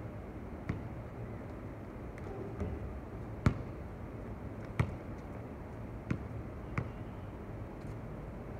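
Basketball bouncing on an outdoor hard court: about five sharp, unevenly spaced bounces, the loudest about three and a half seconds in, over a steady low background hum.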